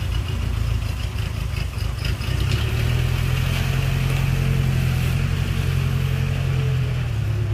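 Steady low drone of factory machinery running, a continuous hum that grows a little louder about two and a half seconds in.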